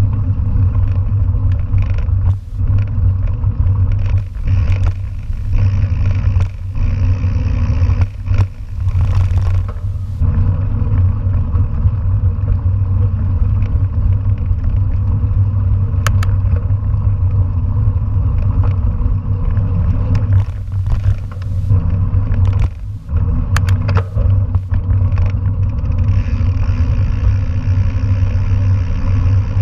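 A mountain bike rolling along a gravel forestry road, heard through the rider's camera microphone: a steady low rumble of tyres and wind, broken by scattered knocks and rattles as the bike goes over bumps, with a few sharp clicks.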